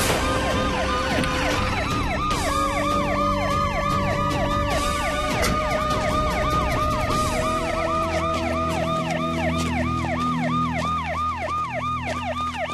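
Police siren in a fast yelp, its pitch sweeping up and down about three times a second.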